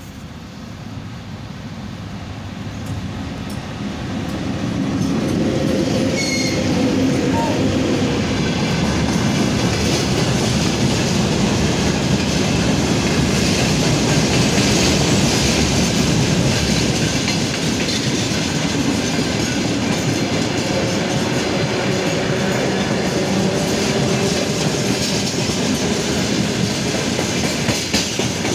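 Freight train hauled by a VL80K AC electric locomotive, approaching and passing close by. The sound builds over the first five seconds as the locomotive draws near, then becomes a steady loud rumble of loaded freight wagons rolling past on the rails.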